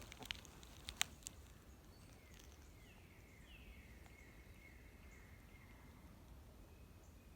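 Faint wild bird calls over quiet outdoor air: a few thin whistles slide down in pitch, then one holds a steady note for a couple of seconds. A few sharp clicks come in the first second or so.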